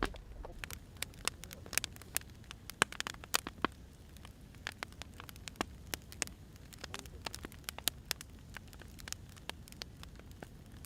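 Firewood burning, crackling with irregular sharp pops and snaps over a low steady rumble of the fire.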